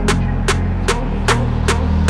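Background music with a steady beat, a sharp hit about two and a half times a second, over a deep, sustained bass line.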